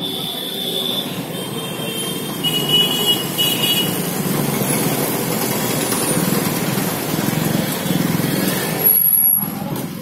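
Busy street traffic: motorcycles and other vehicles running close by, a steady mix of engines and road noise, with a few short high tones over it.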